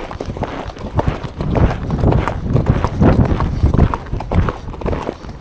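Hoofbeats of a ridden horse moving at speed on a forest trail: a quick, irregular run of thuds.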